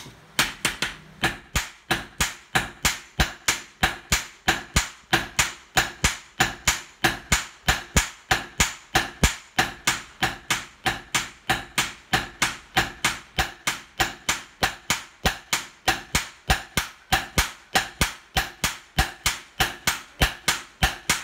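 Sledgehammer blows on a red-hot steel knife blade resting on a small anvil, hand forging a gyuto. The blows come in a steady rhythm of about two and a half a second.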